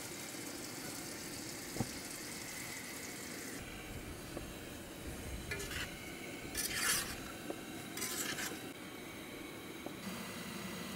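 Camp cooking: a steady hiss that stops about a third of the way in, then three short scraping strokes of a utensil in a pan.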